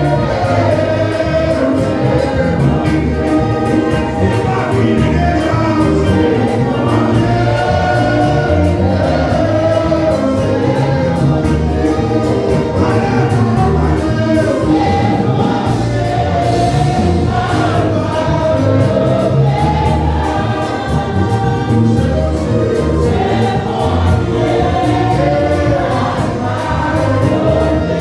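Live gospel worship song: a group of singers at microphones singing together, amplified through the hall's loudspeakers, over a steady beat.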